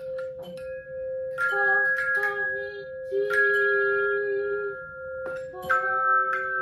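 Tone chimes played by a small group: notes struck one after another and left ringing so they overlap. A lower note sounds throughout, while higher notes come in about a second and a half in, again around three seconds in, and a fresh set near the end.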